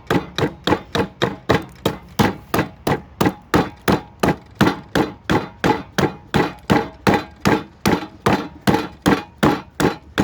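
Hatchet chopping into a cedar block in quick, even strokes, about three a second, as the carving is roughed out.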